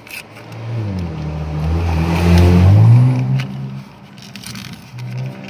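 A motor vehicle's engine passing close by. It grows louder to a peak about two and a half seconds in, with its pitch sliding, then fades away.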